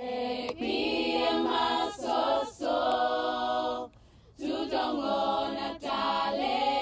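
Choir singing long held chords in phrases, with a short pause about four seconds in.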